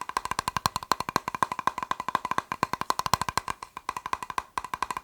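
Fast tapping on a plastic box, about ten sharp taps a second, with the box ringing at one note under the taps. The tapping breaks off briefly about four and a half seconds in.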